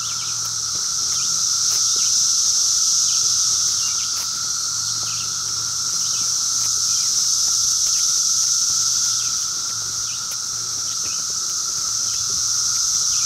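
A chorus of cicadas: a dense high buzz with a steadier lower drone under it, swelling and easing in slow waves of a few seconds.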